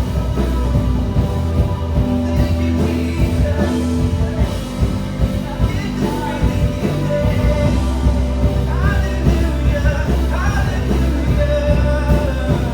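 Live worship band playing a song with drums and bass, with some singing.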